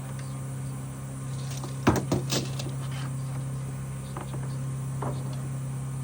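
Steady low hum of a running generator, with a quick cluster of knocks and clatters from wooden boards being handled about two seconds in, and a few lighter taps later.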